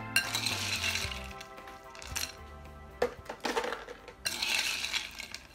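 Ice cubes clattering into a jar and a metal spoon clinking against the ice and the jar rim, in several separate rattles and clinks, busiest about three seconds in. Faint background music runs underneath.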